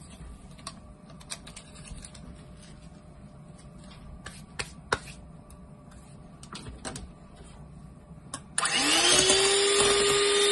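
A few faint taps, then about eight and a half seconds in an electric hand mixer switches on: its motor whines up to speed within a moment and runs steadily as the beaters whisk beaten eggs in a metal bowl.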